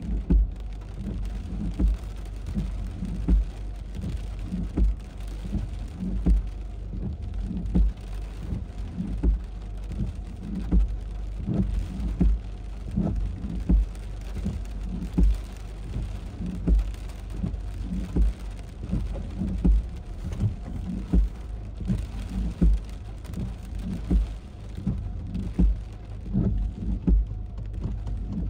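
Heavy rain falling steadily, with a regular low thump about every second and a half.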